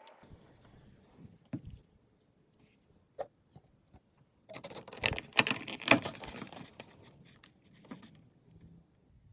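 Small objects being handled: scattered light clicks and taps, then a burst of rustling, scraping and sharp knocks about five seconds in, lasting roughly two seconds.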